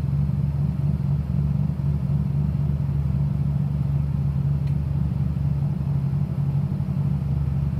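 City bus engine running with a steady low rumble at low revs, heard from inside the passenger cabin as the bus creeps along.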